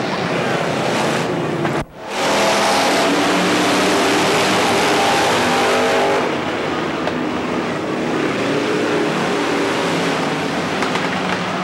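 Several dirt-track stock cars racing past with engines at high revs. The sound drops out briefly about two seconds in, then returns louder.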